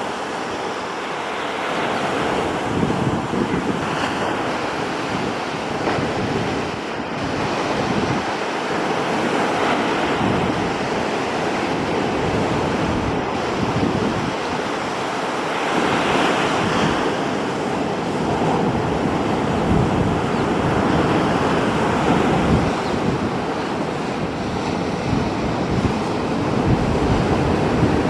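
Surf breaking and washing up a sandy beach: a steady rush of foaming water that swells every several seconds, with wind buffeting the microphone.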